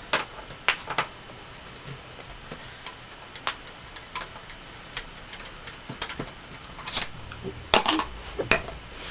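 Irregular small clicks and taps as the case screws of an Xbox 360 are backed out with a T10 Torx screwdriver and handled against the plastic console, a few sharper knocks near the end.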